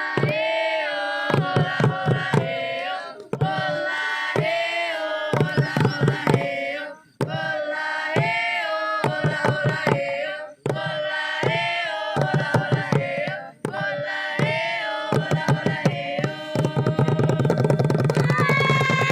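Music: a pitched melody over quick, rapid drum strokes. It plays in phrases, with short breaks about every three to four seconds.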